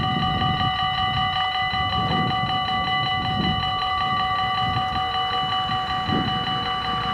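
Dutch level-crossing warning bells ringing in fast, even repeats as the half-barriers lower, over a low rumbling noise.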